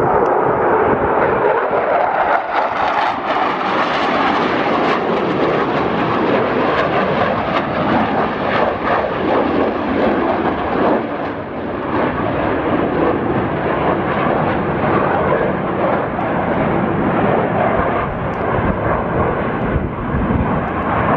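Loud, steady roar of a Blue Angels F/A-18 Super Hornet's twin jet engines as it flies a pass trailing smoke, easing off slightly a couple of times.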